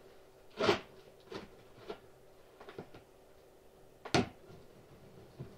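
A large cardboard box being handled and its top cut open with a knife: a few sharp knocks and scrapes, the loudest about a second in and again about four seconds in.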